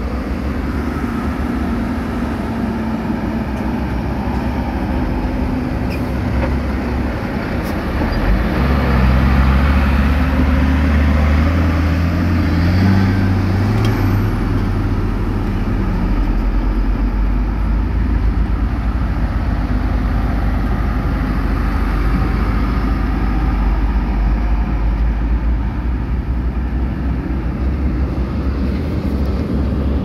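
Heavy diesel engines of construction machinery running steadily; about eight seconds in one engine revs up, its pitch climbing for several seconds before it settles back to a steady run.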